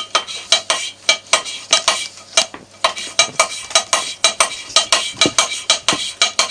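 Exhaust valve of a Moskvich 412 cylinder head being lapped into its seat by hand with diamond paste: rhythmic gritty scraping strokes, about five a second. The lapping is done to grind out the pitting on the valve face and seat.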